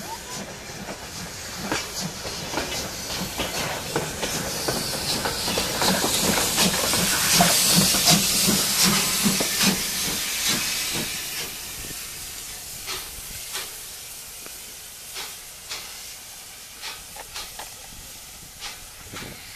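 German Class 65 steam tank locomotive 65 018 running past close by, its cylinders blowing off a loud hiss of steam that swells to a peak about eight seconds in and then fades as it moves away. Regular sharp clicks run through it.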